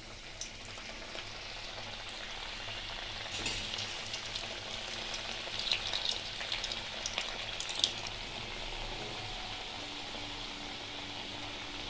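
Chickpea-dal pitha dumplings deep-frying in hot oil in a wok: a steady sizzle with scattered crackles and pops, a few louder ones a little past the middle.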